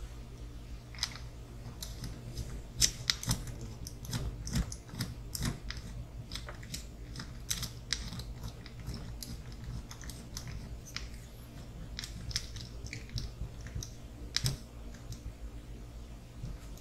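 Irregular light clicks and taps of small RC crawler kit parts, plastic and metal, being handled and fitted by hand during axle and drive shaft assembly, over a steady low hum.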